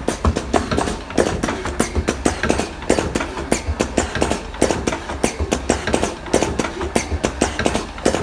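Automatic slim-cigarette tobacco rolling machine running, a fast, steady mechanical clatter of about five or six clicks a second.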